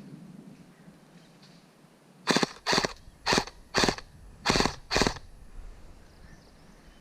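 Airsoft gun firing six times in about three seconds, each shot a sharp crack about half a second after the last.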